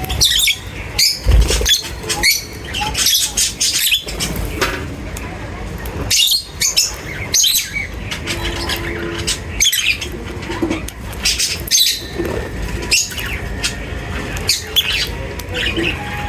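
A group of lovebirds chattering: many short, high chirps, overlapping with hardly a pause. There is a dull thump about a second in.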